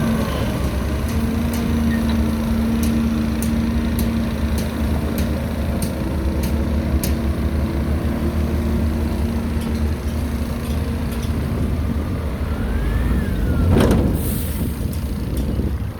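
Heavy diesel construction machinery running steadily under load, with scattered sharp ticks. About fourteen seconds in comes a loud burst followed by a short hiss of air.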